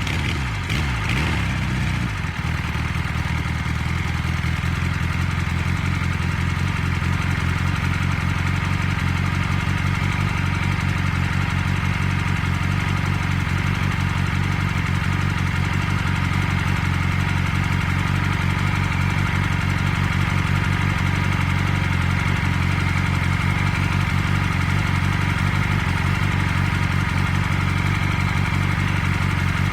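A combustion engine idling steadily just after starting: its note is a little uneven for the first couple of seconds, then settles into an even idle.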